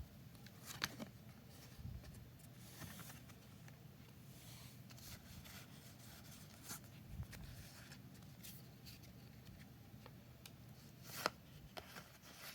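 Faint rustling and crinkling of a Pokémon trading-card booster pack and its cards being handled, with scattered sharp ticks. The sharpest come about a second in and near the end.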